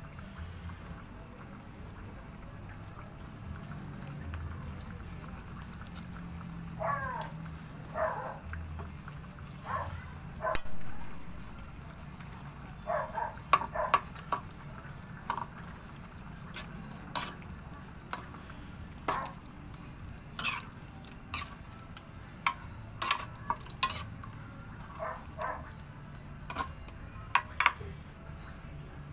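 Metal spatula and ladle scraping and clinking against an aluminium wok as chicken pieces are stirred in simmering sauce. The sharp clinks come irregularly, more and more often in the second half, over a steady low hum.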